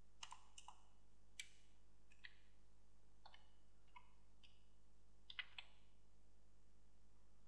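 Computer keyboard keystrokes typed at a slow, uneven pace, about a dozen faint clicks with a cluster of them a little past the middle. A low steady hum lies underneath.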